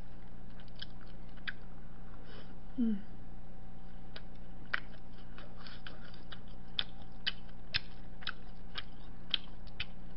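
Close-miked chewing of a meat-stuffed perilla-leaf pancake (kkaennip-jeon): irregular wet mouth clicks and smacks over a steady low electrical hum.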